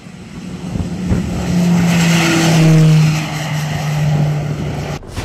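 Baykar Akıncı drone's twin turboprop engines passing by on takeoff. The steady propeller drone swells to its loudest about halfway through and drops in pitch as the aircraft goes past, then cuts off suddenly near the end.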